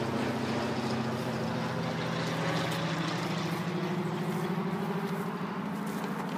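Steady low engine drone, its pitch holding nearly level and easing slightly in loudness toward the end.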